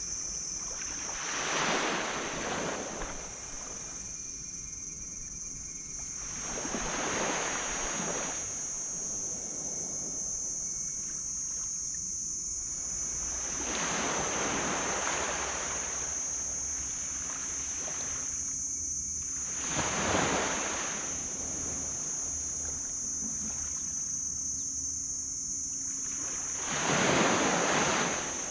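Small waves washing up on a beach, five in turn about every six seconds, each a short rising and fading rush of surf. A steady high-pitched insect drone runs underneath.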